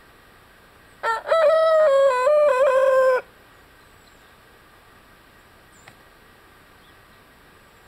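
Six-month-old dark Brahma rooster crowing once, about a second in: a short opening note, then a long crow of about two seconds that steps down in pitch and cuts off sharply.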